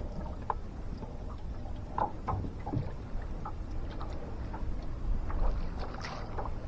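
Water lapping and sloshing, with scattered small knocks and splashes.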